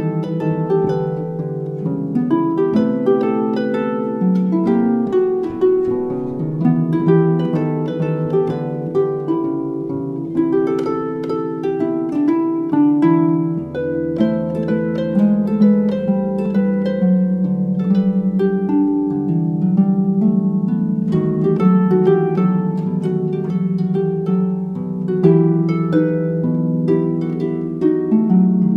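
Solo harp playing a jazzy tune: a quick plucked melody over chords and bass notes.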